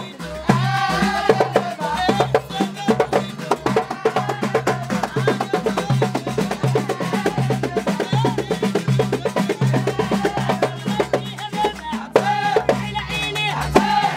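Women singing together over hand-beaten frame drums in a fast, steady rhythm: live traditional wedding music. The singing is strongest about a second in and again near the end.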